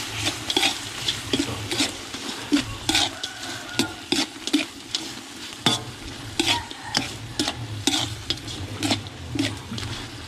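Metal ladle scraping and knocking against a large metal wok while stir-frying meat, with a steady sizzle of frying underneath. The knocks come irregularly, a few each second.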